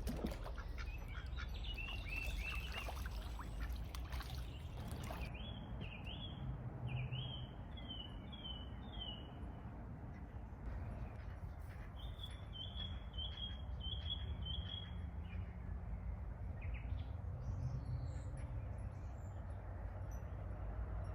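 A songbird singing runs of repeated short chirping notes, one run about five seconds in and another about twelve seconds in, over a steady low outdoor background.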